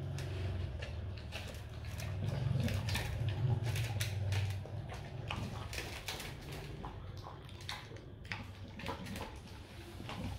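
Rottweiler eating from a stainless steel bowl: irregular crunching and clicking of kibble and the dog's mouth against the metal bowl. A low hum underlies the first half and fades out about four and a half seconds in.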